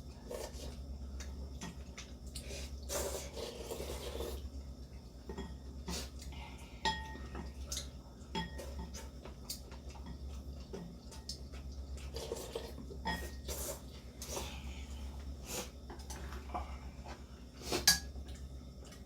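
Cutlery tapping and clinking against dishes while eating: a string of separate clicks and taps, with a louder one near the end, over a steady low hum.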